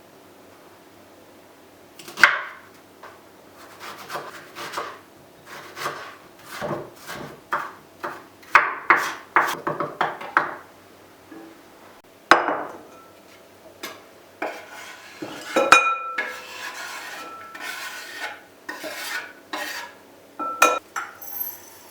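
Objects being handled by hand: a series of irregular knocks, scrapes and light clinks, a few of them ringing briefly.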